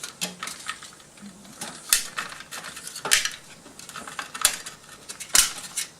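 Scattered metal clicks and clinks of a CPU cooler's mounting hardware knocking against the motherboard as it is fitted, the screws not lining up with the holes. The sharpest clicks come about two, three, four and a half and five and a half seconds in.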